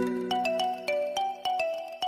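Background music: a light, bright melody of short struck notes that ring and fade one after another.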